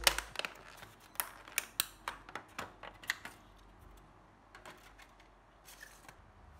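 Clear plastic lid of a takeaway sushi tray being pried open and lifted off: a quick run of sharp plastic crackles and clicks for about three seconds, then a few scattered ones.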